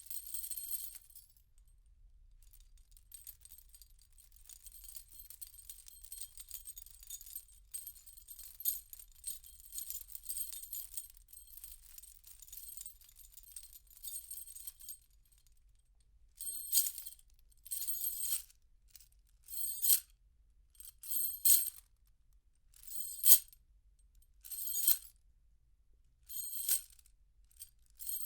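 Metal chain rattling, heard from a few metres away: soft, continuous clinking for the first half, then about eight separate louder shakes, roughly one every second and a half.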